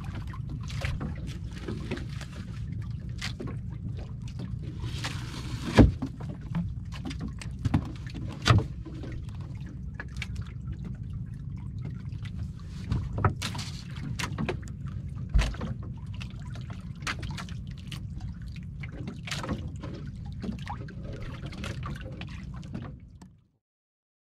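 Small boat engine running steadily, with repeated sharp knocks and handling clatter as fish are moved in a foam cooler; the sound cuts off suddenly near the end.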